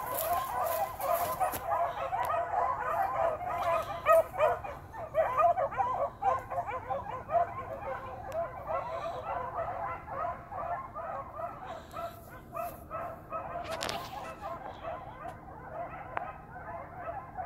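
A pack of nine dogs barking and yipping together in a dense, overlapping chorus as they run through the trees, the calls thinning out somewhat in the second half.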